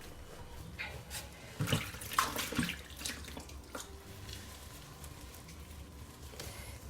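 Wet squelching of steamed matooke being pressed and mashed through a banana leaf, in a few irregular presses, loudest about two seconds in.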